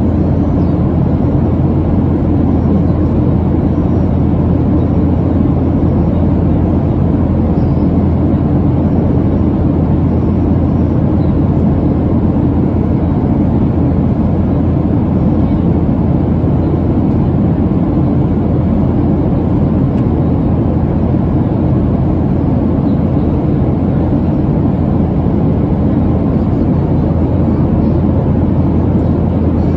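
Steady cabin noise of a Boeing 737-700 in cruise: a constant low rush of airflow and CFM56-7B engine noise, unchanging throughout.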